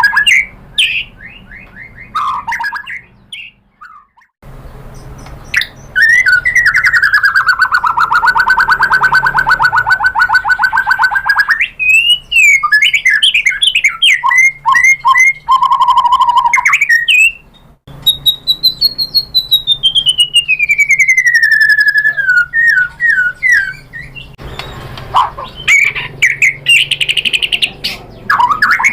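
White-rumped shama (murai batu) singing a varied song. It gives a rapid trill lasting several seconds, then quick runs of whistled notes and a long falling whistle.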